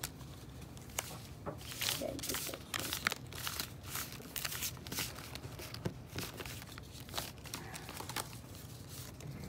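Trading-card packaging being handled: irregular crinkling and rustling with a few sharper tearing sounds, as wrappers and cards are moved about.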